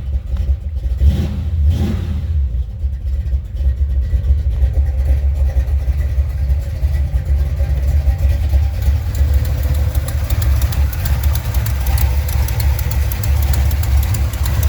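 Buick 455 Stage-1 V8 idling shortly after starting, with a couple of small revs in the first seconds. A fast, even ticking rides over the idle and is plainest in the second half. It is an exhaust leak at the headers that persists after loose header bolts were tightened, which the owner puts down to the new Remflex header gaskets.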